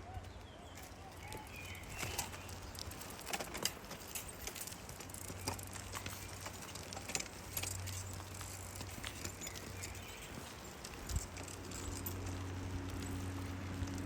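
Dry leaves and twigs crackling and rustling underfoot in irregular clicks, over a low steady hum.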